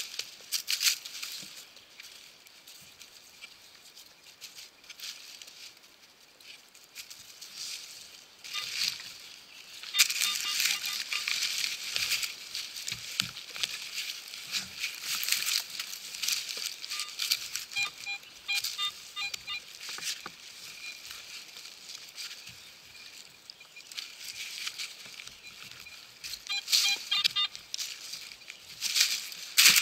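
A small shovel digging into forest soil and dry leaf litter, scraping and rustling. Twice, a little past halfway and again near the end, a metal-detecting pinpointer beeps rapidly in short runs, signalling metal in the hole.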